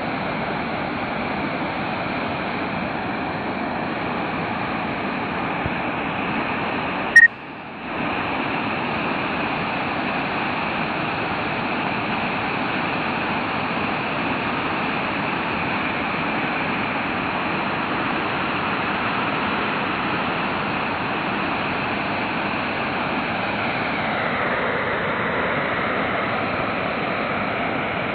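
Steady rushing of floodwater, a continuous even roar. About seven seconds in there is a short beep and a momentary drop.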